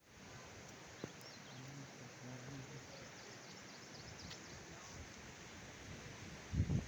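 Steady rushing of river water, with a few faint bird chirps and a low thump near the end.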